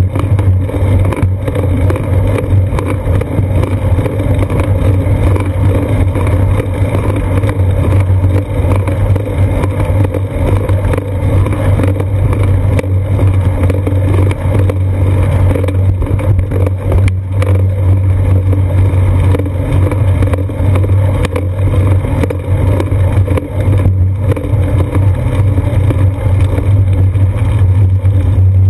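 Loud, steady rumble of wind and road vibration picked up by a camera mounted on a bicycle's seat post while the bike rolls along a paved road, with a constant low drone under it.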